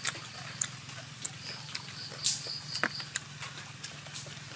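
Close mouth sounds of eating grilled pork ears and intestines: scattered crisp crunches and wet smacks, the loudest a little over two seconds in, over a steady low hum.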